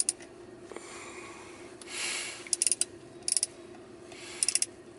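Small clusters of sharp plastic clicks as a magnetic air-vent phone mount's clip is worked onto the slats of a car dashboard vent, with a brief soft hiss about two seconds in.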